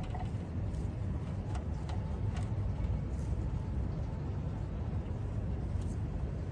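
Steady low rumble of background room noise, with a few faint light clicks scattered through it.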